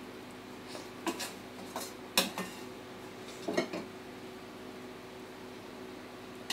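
A metal spoon clinking and scraping against a glass bowl and cookware as food is served. There are a handful of scattered clinks, the sharpest about two seconds in, over a faint steady hum.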